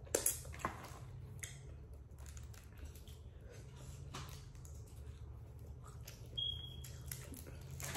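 Close-up eating of boiled crawfish: scattered wet mouth clicks and smacks from sucking and chewing, with shells being pulled apart, over a faint steady low hum.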